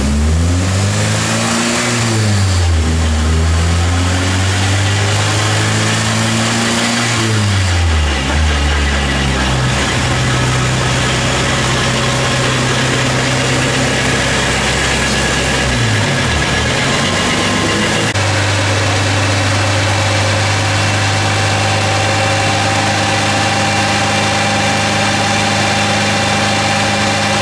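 Honda K20A2 four-cylinder engine revving up and down several times, then held at a steady speed for most of the rest, with one brief dip just past the middle.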